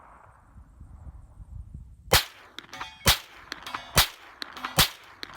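A 9mm carbine fired four times, about a second apart, from a drum magazine, with fainter metallic clangs between the shots from rounds striking steel targets.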